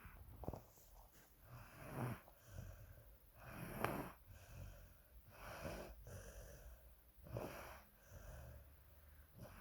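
Soft snoring during a nap: six slow snoring breaths, about one every two seconds, the loudest near the middle.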